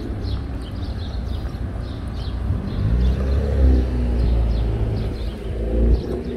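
A car's engine running close by and accelerating, a low rumble that swells about halfway through as its pitch slowly rises.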